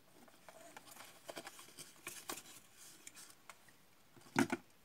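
Pleated paper rosette rustling and crinkling as it is handled, with scattered light clicks, then a short double knock near the end.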